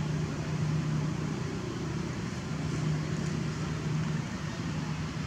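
Steady low drone of a running motor, with an even hiss of background noise.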